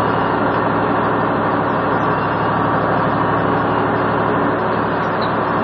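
Truck engine running steadily with road and tyre noise, heard from inside the cab while driving on a snow-covered road.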